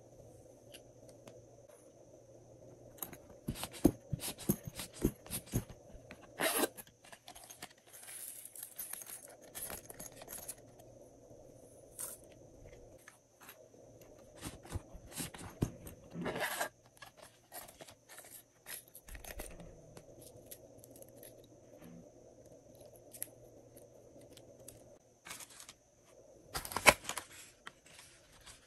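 Glossy slime being worked by hand, with bursts of sticky clicks and crackles as it is pressed, stretched and pulled apart, separated by quieter stretches. A faint steady hum runs underneath.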